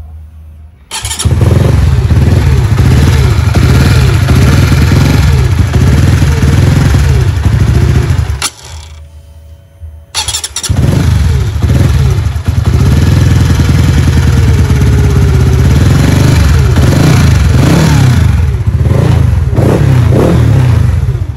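Modified Honda Winner motorcycle engine started and revved, stopping about eight seconds in and starting again about two seconds later to rev on. It runs noisily, which the owner puts down to a stretched cam chain.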